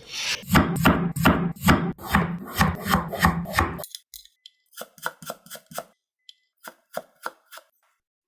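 A knife cutting potatoes on a cutting board: a quick run of chopping strokes, about four a second, each with a dull thud of the board. About four seconds in it cuts off sharply, followed by sparser, lighter knife taps with pauses between them.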